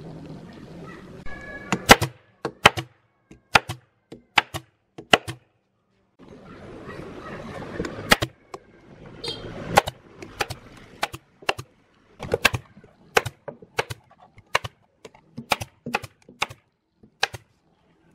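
Pneumatic staple gun firing again and again, sharp single shots about one or two a second with short pauses, fastening polyester batting inside a wooden subwoofer enclosure.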